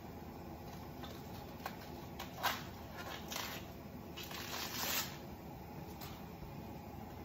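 Red cabbage leaves being torn off the head by hand: crisp crackling and ripping, sharpest about two and a half seconds in and again in a longer stretch around four to five seconds in, over a steady low hum.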